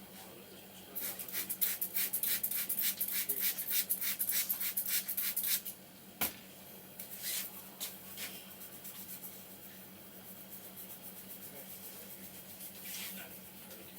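Hands rubbing briskly over hair and scalp in a head massage: a fast run of scratchy strokes, a single sharp click about six seconds in, then softer rubbing.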